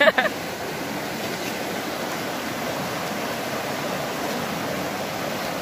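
Steady rush of flowing river water over shallows; the current here is strong.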